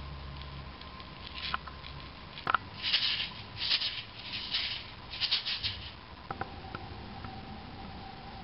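Maracas shaken in four or five short rattling bursts, with a few sharp clicks and a faint steady hum underneath.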